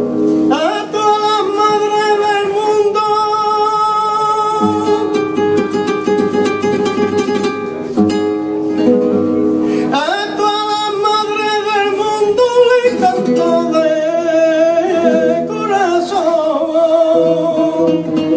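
Flamenco cante: a male singer holds two long, wavering melismatic phrases, the first starting about half a second in and the second about ten seconds in, over a plucked Spanish acoustic guitar accompaniment that carries on alone between them.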